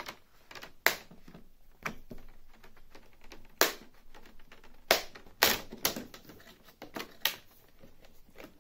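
Plastic screen bezel of a Dell Inspiron 15 5570 laptop being prised off the display, its clips snapping loose in a string of sharp, irregularly spaced clicks.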